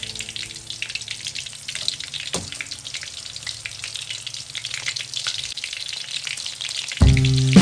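Battered shrimp fritters deep-frying in a wok of hot oil: a steady crackling sizzle, with one sharp click a couple of seconds in. Loud music starts near the end.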